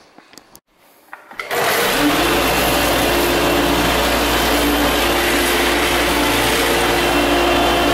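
Square-pad orbital floor sander with a dust-collection vacuum on top, switched on about a second and a half in after a few small clicks, then running steadily with an even hum while sanding a hardwood floor.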